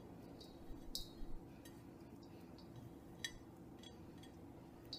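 Faint, scattered clinks and taps of a plate against a stainless steel mixing bowl as fingers scrape minced parsley off it, with a brief ring after the loudest taps about a second in.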